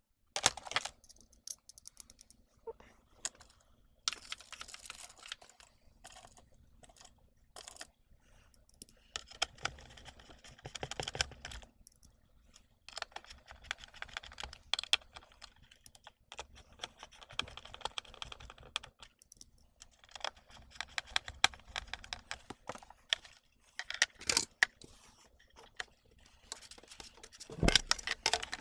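Screws being driven into a plastic appliance casing with a screwdriver, with repeated clicks and scratchy rasping stretches as each screw turns, and plastic parts being handled. A louder knock comes near the end.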